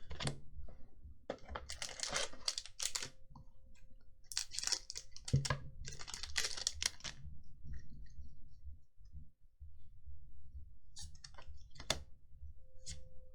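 Magic: The Gathering cards being handled and sorted, clicking and snapping against each other and the table in quick runs, with a few single taps later.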